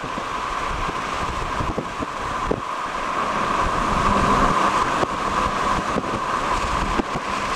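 Steady rushing wind noise on the microphone in a storm's wind, with a few faint knocks.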